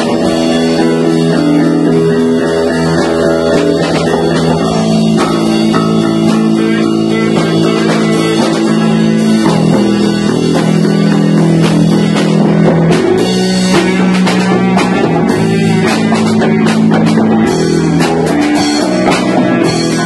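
Rock band playing live in a small room: electric guitar and bass holding sustained chords over a drum kit, loud throughout, with drum and cymbal hits growing busier in the second half.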